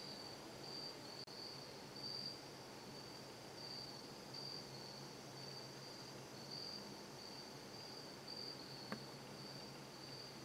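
Crickets trilling steadily in a faint, high-pitched chorus that swells and fades in uneven pulses, with a single small click near the end.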